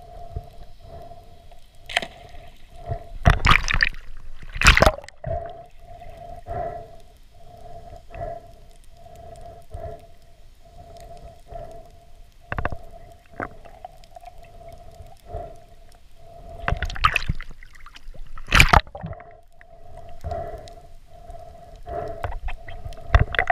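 Underwater sound picked up through a camera housing: a mid-pitched tone pulsing on and off more than once a second, broken by a few loud, short rushing bursts of water noise.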